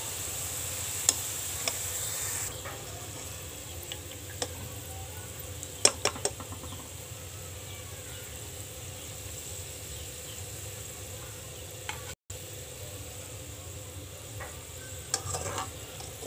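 Sliced onions frying brown in hot oil in a metal pot, sizzling steadily, louder for the first couple of seconds. A metal spoon and perforated skimmer click and scrape against the pot a few times as the browned onions are stirred and lifted out of the oil.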